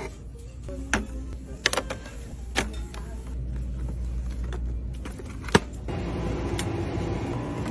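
Plastic aerosol sunscreen bottles clacking against each other as a hand pulls them off a store shelf. This is followed by a single sharp knock as a boxed kitchen scale is set into a plastic shopping cart, then a steady rumbling noise.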